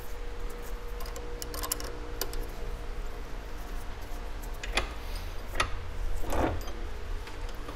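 A handful of light, separate metallic clicks as a spanner works nuts on a corroded steel stud clamped in a bench vise, over a low steady background hum.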